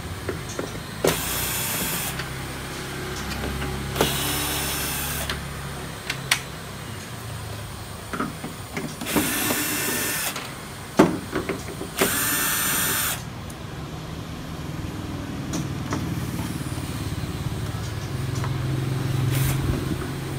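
Cordless drill-driver spinning in four short bursts of about a second each, backing screws out of a TV's back cover. Sharp clicks and knocks of screws and the cover being handled fall in between.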